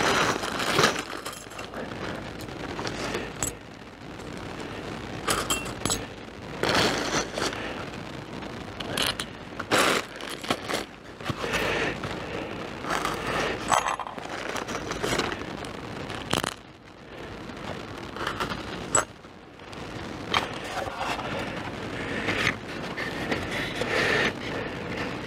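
A plastic bag of screws with washers being handled: crinkling plastic with irregular clicks, knocks and scrapes of the screws and hardware.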